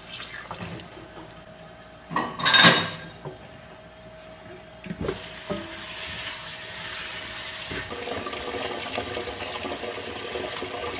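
Metal cookware clatter at a wok: a loud ringing clank of the metal lid about two and a half seconds in, a couple of knocks near five seconds, then a spatula scraping and stirring in the wok with a steady hiss from about eight seconds.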